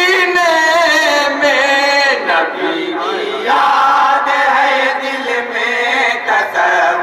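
Group of men chanting devotional Urdu verse together in long, held, wavering notes.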